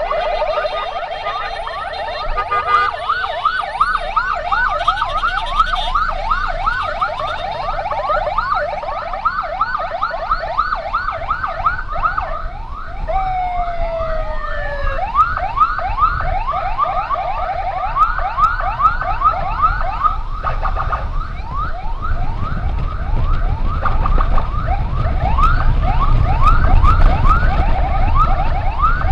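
Emergency siren in a fast yelp, sweeping up and down about three times a second. A second, slower falling tone joins for about two seconds midway, and a low rumble grows louder in the last third.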